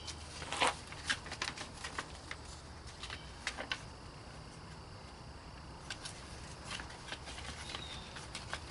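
Scattered light clicks and taps of small parts and packaging being handled, thickest in the first few seconds, over a low steady hum.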